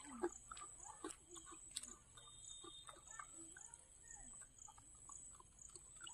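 Near silence: faint ambience with a steady, high-pitched pulsing hiss and a few soft clicks.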